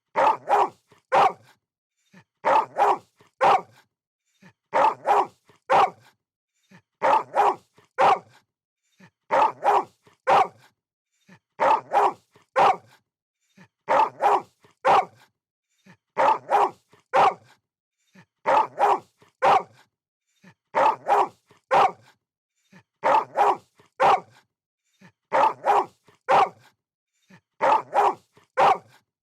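Dog barking in quick clusters of about three barks, the clusters repeating evenly about every two seconds with short silences between.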